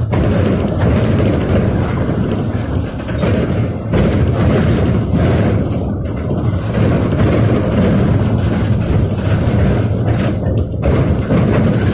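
KTM-28 (71-628) tram heard from inside the car while it runs along the line: a loud, steady rumble of wheels on rails, with a faint steady high whine above it.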